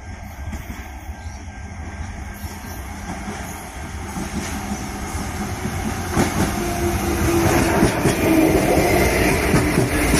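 Adelaide Metro 3100-class diesel railcar approaching and passing, growing steadily louder. Wheels clatter over the rail joints from about six seconds in, with an engine hum as it draws level. Wind rumbles on the microphone throughout.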